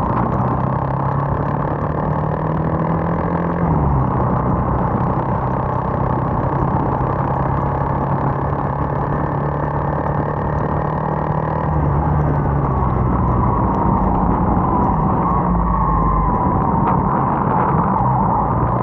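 Bajaj motorcycle engine running at cruising speed under a constant rush of wind and wet-road noise; the engine note drops a little about four seconds in.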